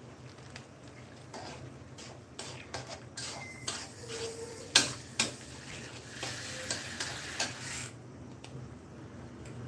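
Metal spatula stirring a thick curry with potato pieces in a black wok, scraping and clinking against the pan with a run of sharp knocks, the loudest about halfway through. The stirring dies away near the end.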